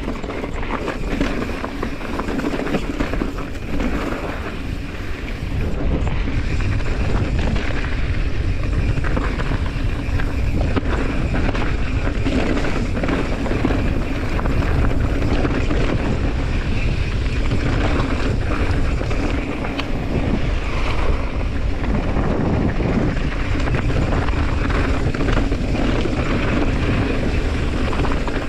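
Mountain bike rolling fast over rocky dirt singletrack: knobby tyres crunching on gravel with small knocks from the rough ground, under steady wind rushing over the camera microphone.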